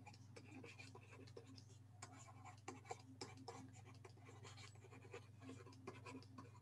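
Faint scratching and light tapping of a stylus writing on a pen tablet, over a low steady hum.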